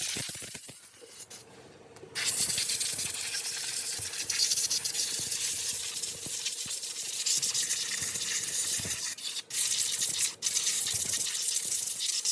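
Steady high-pitched hissing, scrubbing workshop noise, from a tool or air jet working on gearbox parts, with a faint steady hum underneath. It starts about two seconds in after a brief quieter gap and cuts out for a moment a few times.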